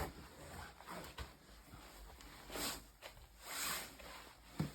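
Someone moving through deep snow: two faint swishes of snow and clothing about a second apart, with a few small knocks.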